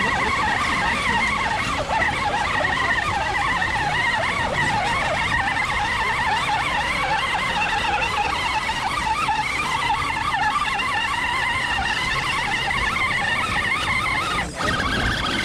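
Electric motor and gearbox of a radio-controlled scale crawler whining continuously, the pitch wavering as the throttle changes, with a brief drop about fourteen seconds in.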